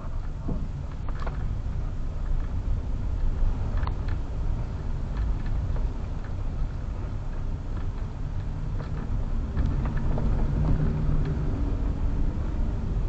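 Low rumble of a car crawling through slow traffic, heard from inside its cabin, with nearby motorcycle engines around it. A couple of sharp knocks come about a second in and again about four seconds in, and engine tones grow a little louder near the end.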